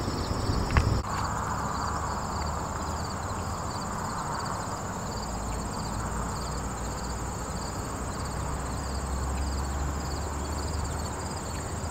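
Insects calling in a garden: a continuous high trill with regular cricket chirps, about two a second, over a steady low outdoor rumble. A short knock comes just under a second in.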